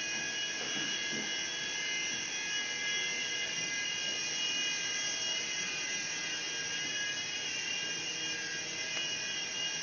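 Small iPhone-controlled toy helicopter's electric motors and rotors running with a steady, high-pitched whine.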